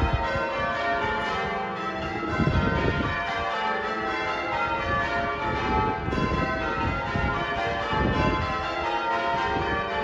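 Wakefield Cathedral's church bells ringing, many bells struck one after another so their tones overlap in a continuous, steady peal.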